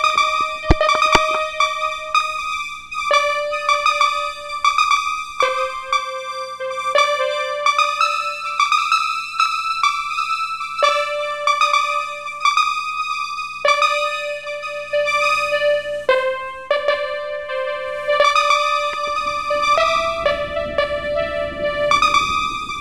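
Background music: a keyboard or synthesizer melody of held notes. A low rushing noise rises beneath it near the end.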